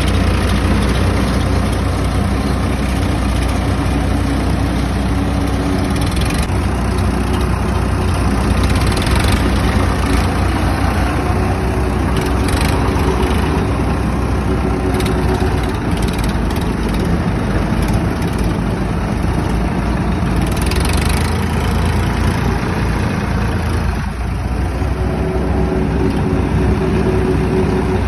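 Swaraj 963 FE tractor's diesel engine running steadily at low revs, its pitch shifting a little now and then.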